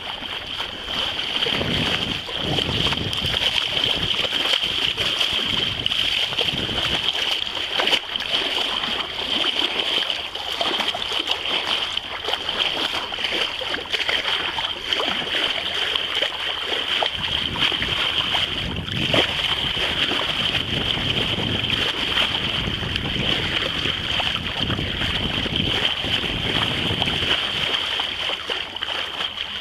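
Sea water rushing and splashing along the hull of a sailboat moving under sail, with a steady hiss and wind buffeting the microphone in irregular low gusts.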